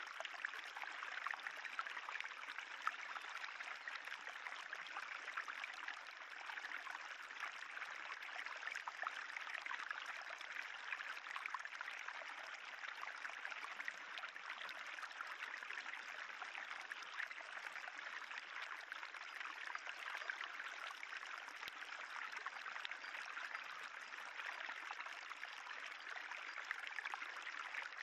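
Spring water trickling steadily along a narrow limestone tufa channel, a small stream flowing over the stone.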